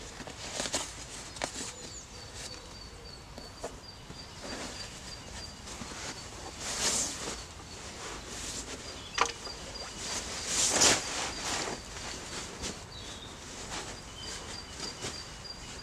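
Synthetic sleeping bag fabric rustling and swishing as it is unpacked and spread over an inflatable sleeping mat, in scattered bursts with the loudest about seven and eleven seconds in. A faint, evenly pulsing high-pitched peeping comes and goes behind it.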